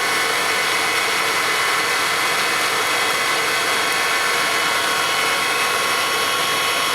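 Top One 3-axis CNC bed mill spindle running unloaded at a steady 3,000 RPM: an even machine hum with a steady whine.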